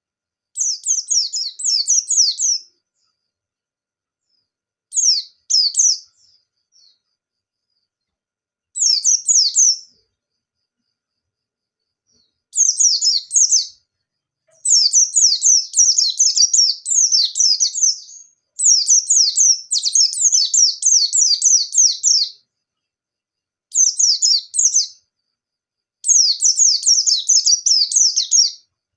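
A white-eye (pleci) singing vigorously in rapid, high-pitched twittering song bouts. Each bout lasts from about a second to several seconds, with short silent gaps between them; the longest run comes about halfway through.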